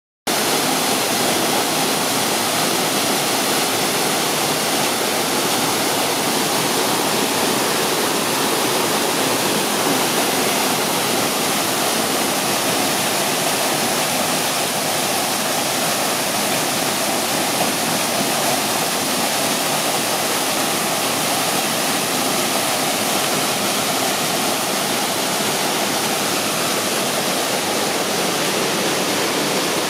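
Waterfall: water pouring down and splashing in a steady, loud rush.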